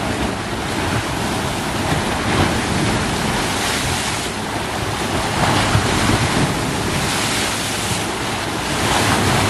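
Lake waves breaking and splashing against a rocky shoreline: a steady rush of surf that swells louder a few times as bigger waves hit the rocks.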